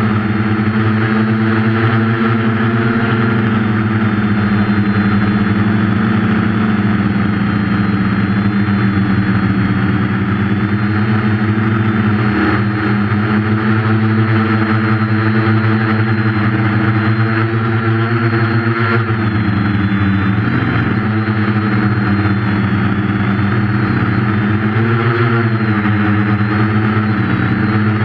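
Quadcopter's electric motors and 8.5-inch propellers humming steadily, recorded by the camera on the aircraft. The pitch dips and climbs back twice, about 19 and 25 seconds in.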